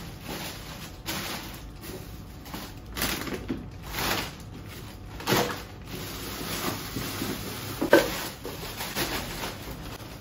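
Household clatter from chores: a series of separate knocks and clunks of things being handled and set down, the sharpest about eight seconds in.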